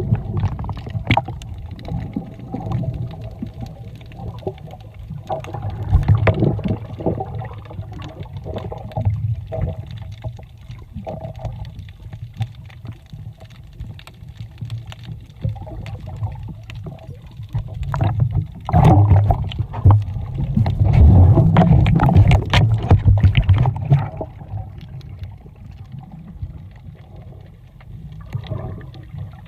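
Sea water sloshing and gurgling around a snorkeller's camera, with scattered clicks and a faint steady hum beneath. It swells louder for several seconds past the middle.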